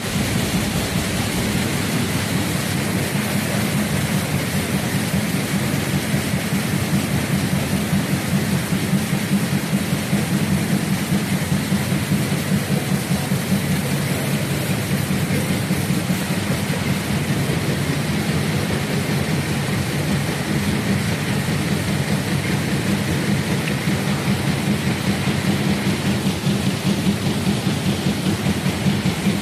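Flexo printing machine with inline roll die punching unit running at speed, printing paper cup fans from a roll: steady machine noise with a fast, even low pulse under a constant hiss.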